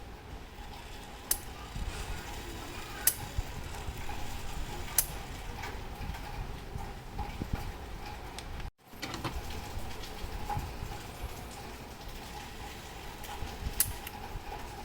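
Light metallic clicks and taps of small clock-movement parts and tools being handled, a few sharp ones a couple of seconds apart, over a steady faint hum. The sound cuts out for an instant just under nine seconds in.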